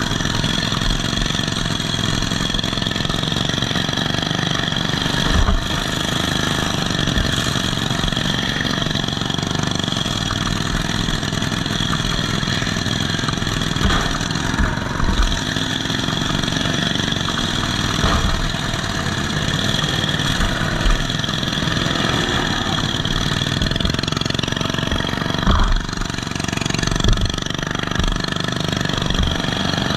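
Riding lawn mower engine running through short upright straight exhaust stacks, heard up close from the driver's seat, with other mower engines around it. Several sudden thuds break in as the mowers bump and ram into each other.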